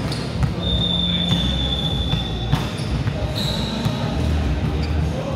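Basketball bouncing on a sports-hall floor, a scatter of short knocks. A steady high-pitched tone lasts nearly two seconds starting about half a second in, and a shorter one comes a little past the middle.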